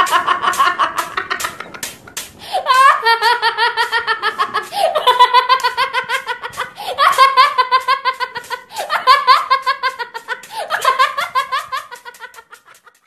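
High-pitched comedic meme laugh sound effect: a rapid 'ha-ha-ha' laugh repeated in about six near-identical bouts of roughly two seconds each, each one opening with a sharp rising whoop. It fades out near the end.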